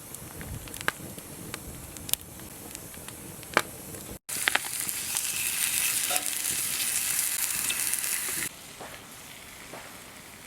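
Food sizzling in a hot frying pan, which fits the butter-sautéed eryngii mushrooms. It starts loud after a cut about four seconds in and drops off sharply just past eight seconds. Before it come a few sharp scattered clicks and crackles.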